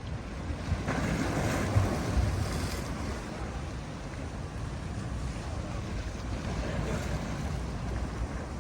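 Sea waves breaking on the shore: a wave crashes and washes in about a second in, then the surf settles into a steady rushing wash.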